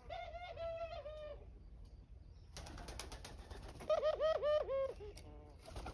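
A dove calling in quick series of short rising-and-falling coo notes, in two bouts; the second, about four seconds in, is the louder. Between the bouts there is a brief rustle of wings flapping.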